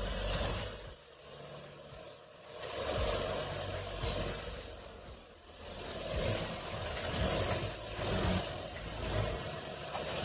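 A motor or engine running, its level rising and falling every couple of seconds.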